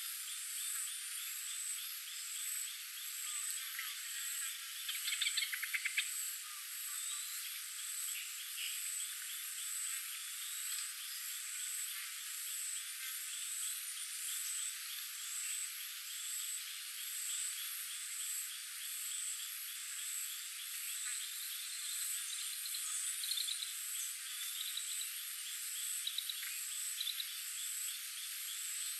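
Forest ambience: a steady chorus of small calling animals, with a high, even trill over a rapid pulsed call that repeats throughout, and a louder short burst of calls about five seconds in.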